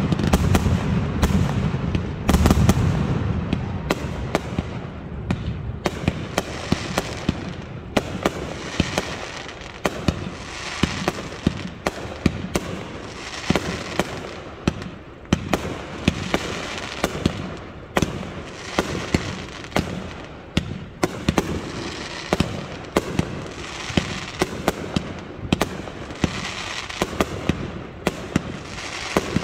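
Fireworks display: a continuous run of shell launches and aerial bursts, heard as sharp bangs coming one after another. The first few seconds carry heavy, deep booms, and after that stretches of high crackling keep coming back between the bangs.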